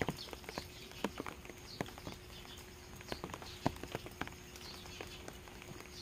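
Rain dripping from the eaves of a thatched roof onto wet ground and stones: an irregular patter of single drops, several a second, over a soft rain hiss.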